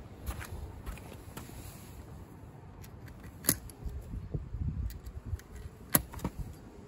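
Hands working on the underside of a Honda Today scooter: soft knocks and handling noise, with two sharp clicks, one midway and one near the end.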